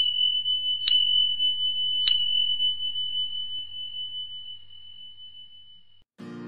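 A high, single-pitched chime struck three times about a second apart, ringing on and slowly fading away. Acoustic guitar music starts near the end.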